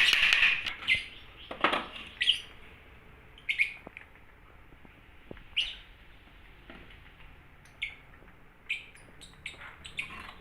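Birds chirping in short, scattered calls, one every second or so, with the tail of a rooster's crow fading out right at the start.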